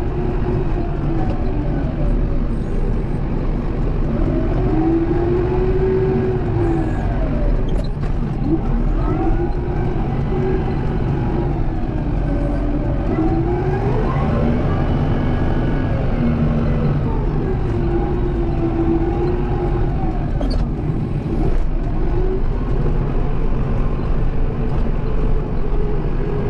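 Kubota M7060 tractor's four-cylinder turbo diesel engine running steadily with a deep rumble, its tone rising and falling in slow swells every few seconds as it works. A couple of sharp clicks stand out, one about a third of the way in and one about three-quarters through.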